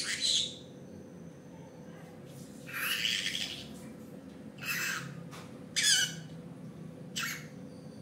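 Green-cheeked conure giving five short calls spread over several seconds, the second one the longest.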